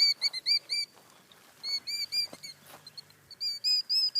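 Killdeer calling: rapid runs of high, piping notes, about five a second, broken by short pauses. These are the alarm calls of a parent bird in its broken-wing distraction display, luring an intruder away from its eggs on the ground.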